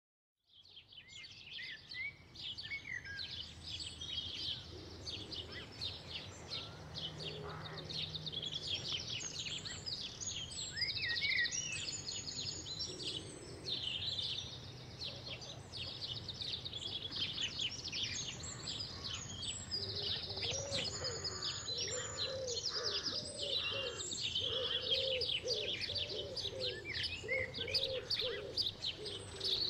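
Several small songbirds singing and chirping in a busy garden chorus. About two-thirds of the way in, a lower call joins underneath, repeated about once a second.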